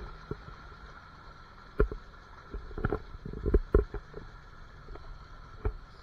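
Scattered dull knocks and bumps, about half a dozen, from a body-worn camera being jostled and handled, over a steady rushing background.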